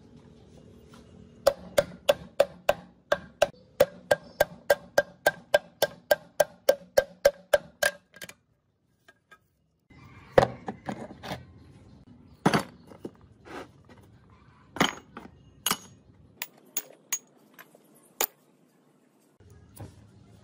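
A hammer strikes steel gearbox parts over and over, about three blows a second, each blow ringing metallically at the same pitch. After a short pause come irregular clanks and knocks of metal parts being handled.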